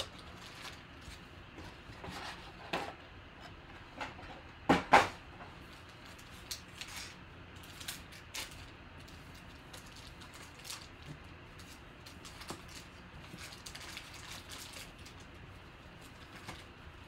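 Sealed foil trading-card packs handled and stacked on a table: scattered crinkles and light taps, with two sharper knocks about five seconds in as packs are set down.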